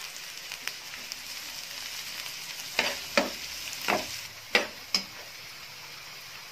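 Sliced onions frying in oil in a nonstick frying pan, a steady sizzle, with a metal spatula scraping and knocking against the pan about five times from about three to five seconds in as they are stirred. The onions have turned pink and are being taken on to light brown.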